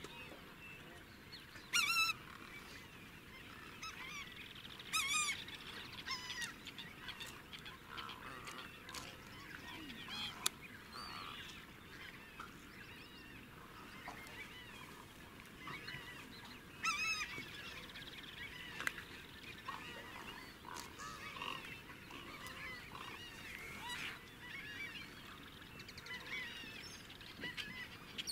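Wetland dawn chorus of many birds chirping and calling over the water. Loud, short honking calls stand out about two seconds in, around five seconds, and again around seventeen seconds.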